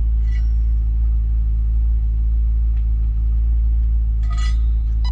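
Chevy SS's 6.2-litre LS3 V8 idling steadily with a low rumble. Near the end an electronic chime starts sounding.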